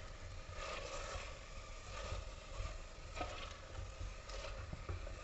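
Drumstick (moringa) pieces frying quietly in oil in an aluminium pressure cooker, with a plastic spatula stirring them and giving a few soft scrapes and knocks against the pot.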